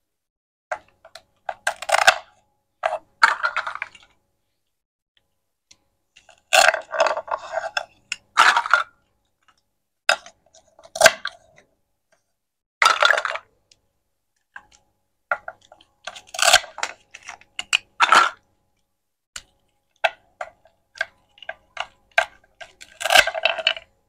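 A plastic toy knife cuts through velcro-joined play fruit on a wooden board. About nine short tearing rips come as the halves pull apart, with light plastic clicks and taps between them.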